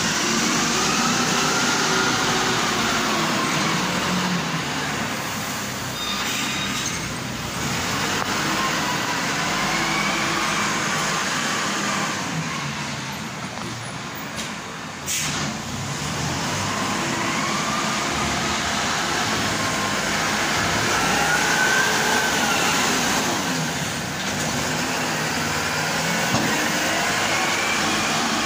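Fort 33 compact wheel loader at work, its engine pitch repeatedly rising and falling as it drives and works the bucket. A single sharp knock about halfway through.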